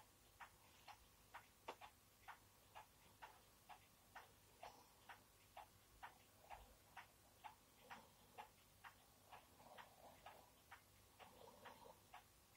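A clock ticking faintly and steadily, about two ticks a second, in a near-silent room.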